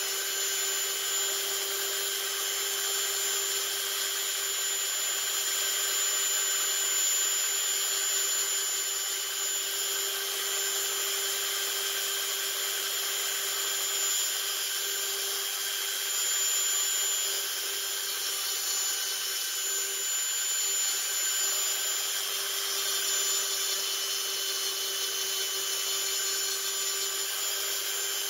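Battery-free Dremel-style rotary multitool running at a steady speed with a constant high whine, its bit grinding along the edges of a carved wooden relief.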